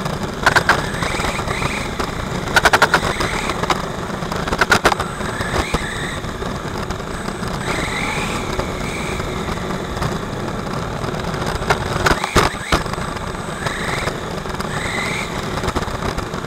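Onboard sound of a 1/8-scale HobbyKing HKM-390 RC motorbike lapping a track. The motor's whine rises several times as the throttle opens, over a steady rush of wind and tyre noise. Clusters of sharp rattling clicks come about half a second, three seconds, five seconds and twelve seconds in.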